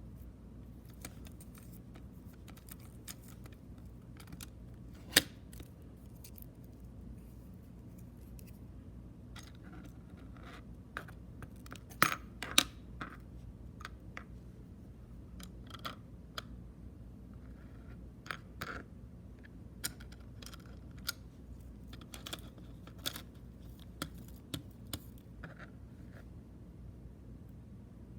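Hands handling a Sony UX Pro cassette tape and its plastic case and wrapping: scattered small plastic clicks and rustles, with a few sharper clacks about 5 seconds in and again around 12 seconds in.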